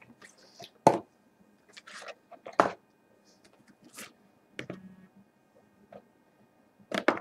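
Cardboard trading-card boxes being handled and set down on a wooden table: scattered light knocks and clicks, about one a second, with a quick cluster near the end.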